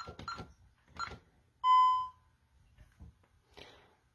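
Honeywell Vista 15P alarm keypad keyed in to clear the alarm. Three short key-press beeps come in the first second, then one longer, clear beep about half a second long, the loudest sound.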